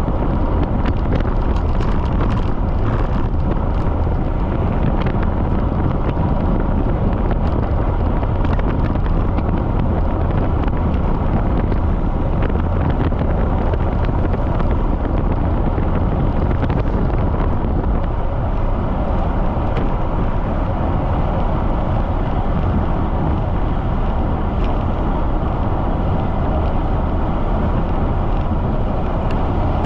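Strong wind buffeting the microphone on a bicycle ride at speed: a steady, loud rush with a deep rumble underneath.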